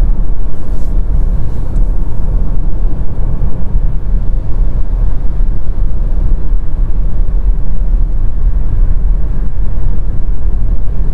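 Car driving at highway speed, heard from inside the cabin: a steady low rumble of tyre, road and engine noise.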